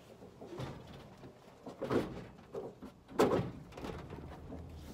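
Knocks and clunks of things being handled, with two louder knocks about two seconds and three seconds in.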